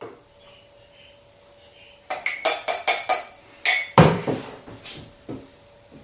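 Cutlery clinking against crockery. A quick run of about half a dozen ringing clinks starts about two seconds in, then a heavier knock and clatter comes around the four-second mark, with softer knocks after it.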